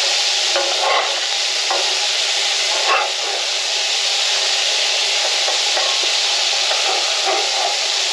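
Hamburger patties sizzling steadily in a cast iron skillet, with a metal spatula scraping along the pan bottom as the patties are pried loose and flipped; the sharpest scrape comes about three seconds in.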